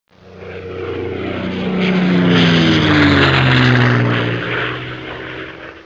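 Airplane fly-by sound effect: aircraft engine noise swells up, peaks near the middle, then fades away, its pitch falling as it passes.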